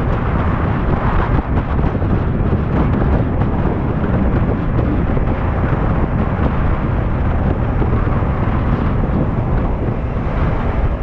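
Motorcycle cruising steadily at road speed: a constant low rumble of wind buffeting the microphone, mixed with engine and road noise.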